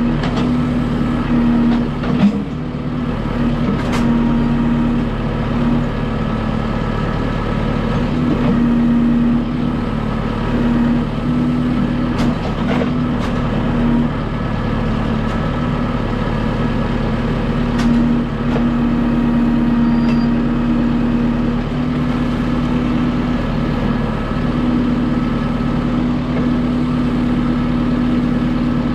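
Kubota M6060 tractor's four-cylinder diesel running steadily under load while it works a Titan LW-6 backhoe digging out a ditch. A whine comes and goes every few seconds as the backhoe works, and there are a few sharp knocks.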